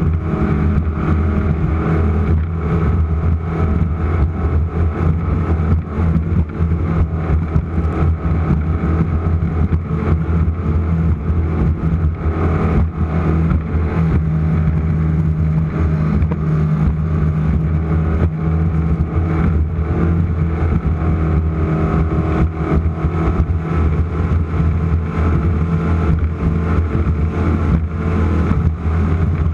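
Offshore race boat's engines running hard at steady high speed: a loud, unbroken low drone.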